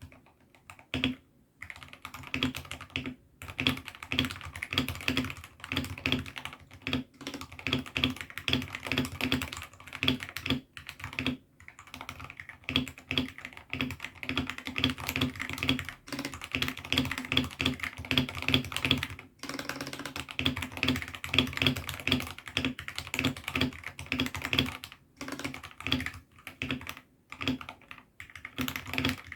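Typing on a mechanical keyboard fitted with AKKO Sakura switches: a fast, uneven stream of keystrokes with brief pauses between bursts.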